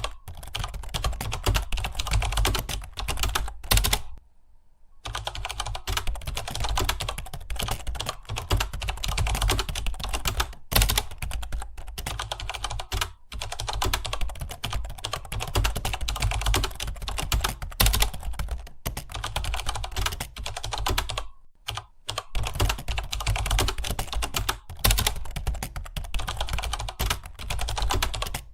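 Several computer keyboards being typed on at once, a dense stream of rapid key clicks, with brief lulls about four seconds in and again near twenty-one seconds.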